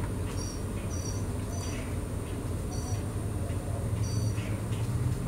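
A steady low background hum with short, high chirps repeating irregularly about once a second, and faint small plastic clicks as a syringe's needle tip is handled.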